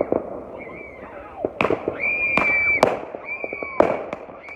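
Fireworks going off: several whistling shells each give a steady high whistle lasting about a second, and each ends in a sharp bang, with scattered smaller pops and crackles between.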